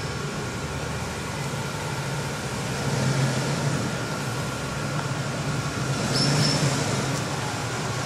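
SUV engine running at low speed as the vehicle pulls out of a parking space and drives toward the camera: a steady low rumble that swells a little twice. A brief high beep sounds about six seconds in.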